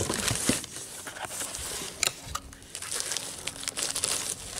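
Plastic wrapping and cardboard packaging crinkling and rustling as a boxed battery charger is handled and pulled out, in irregular crackles and clicks, with a sharper crackle about two seconds in.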